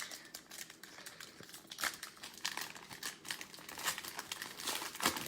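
Foil trading-card packs of 2020 Panini Prizm Football crinkling and being torn open by hand, an uneven run of sharp crackles.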